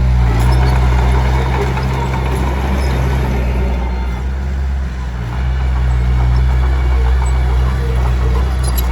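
Diesel engine of a Komatsu D21P small bulldozer running steadily, with a rough grinding, scraping noise over the first few seconds that eases off about halfway through.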